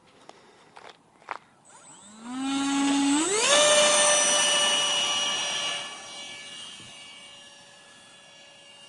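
64 mm electric ducted fan of a Starmax F-35 RC jet spooling up about two seconds in, jumping to a high, steady whine at full throttle, then fading as the plane climbs away.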